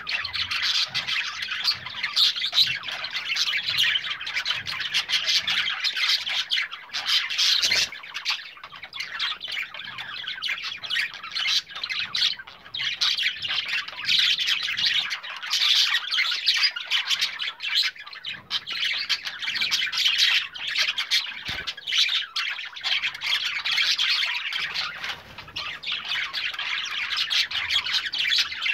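A group of show budgerigars chattering together: a continuous, dense stream of rapid high chirps and warbles from several birds at once.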